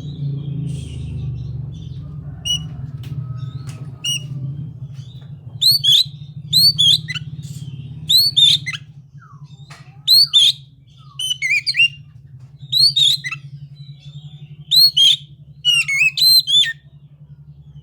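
Oriental magpie-robin (kacer) singing loud, sharp whistled notes in quick clusters from about six seconds in. A steady low hum runs underneath.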